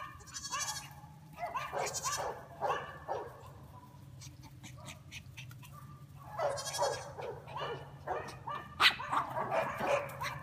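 A chihuahua yapping and a young goat bleating as they chase each other: short, high-pitched calls come in quick runs, four bursts in all with a quieter stretch in the middle.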